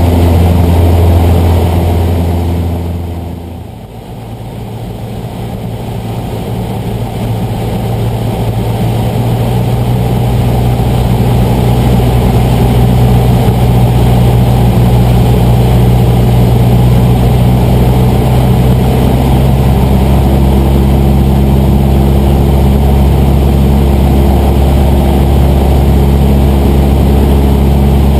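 Cessna 150's four-cylinder aircraft engine and propeller running with a steady drone. About three seconds in the sound dips sharply and swells back over several seconds, settling into a steady, lower note.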